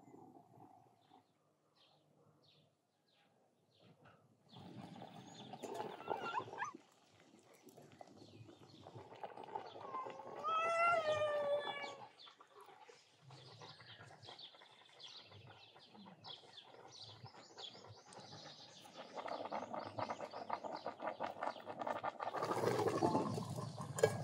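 Birds chirping outdoors, with an animal's loud wavering call about ten seconds in. A steady hiss builds over the last few seconds.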